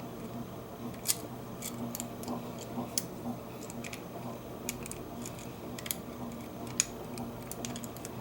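Lock pick raking inside a Bunker Hill disc padlock: light metallic clicks and scrapes at an irregular pace, over a steady low hum.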